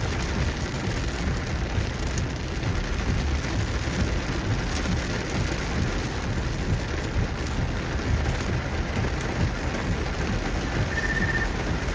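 Heavy rain pouring on a moving car, a steady dense hiss over a constant low road rumble.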